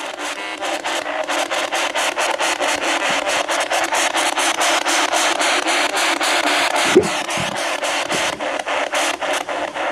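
Spirit box sweeping through radio stations: a steady hiss of radio static, chopped into rapid, even pulses, with one short louder blip about seven seconds in.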